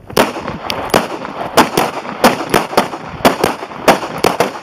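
Semi-automatic pistol fire: a rapid string of about a dozen shots, two to three a second at uneven spacing, with some fainter shots mixed in among the louder ones.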